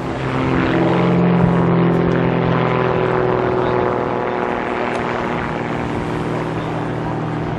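An Extra 300L aerobatic plane's six-cylinder Lycoming piston engine and three-bladed propeller drone steadily during aerobatics. It is loudest about a second or two in, then eases off slightly.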